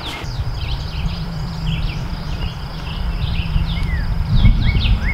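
Small birds chirping, many short notes falling in pitch, over a low rumble of wind on the microphone that gusts stronger near the end.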